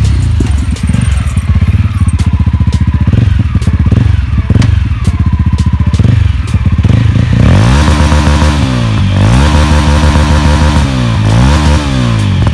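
Mahindra Mojo 300's single-cylinder engine, exhaust through the stock silencer with its dB killer removed: it pulls up with sharp crackling pops, then is revved again and again while the bike stands still, about four rises and falls in the second half.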